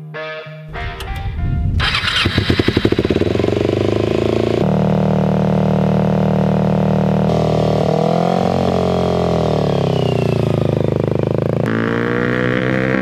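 Motorcycle engine of a custom off-road buggy, fitted with a DG aftermarket exhaust, starting up about a second in and then running loudly. It is revved once past the middle, its pitch rising and falling.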